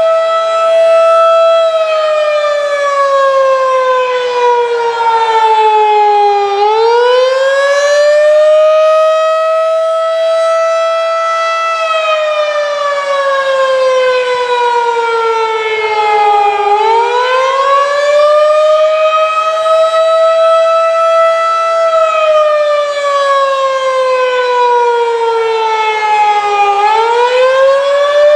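Federal Signal 2001-DC outdoor warning siren sounding its attack signal: its single tone winds up quickly, holds near its top pitch of about 667 Hz, then slowly coasts down, repeating about every ten seconds.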